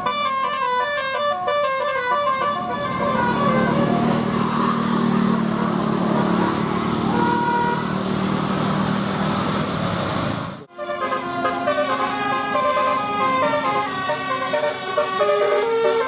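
Bus telolet (basuri) horns playing fast multi-note tunes. The tune gives way for several seconds to noisier vehicle sound, then after a sudden cut about ten and a half seconds in the horn tune resumes.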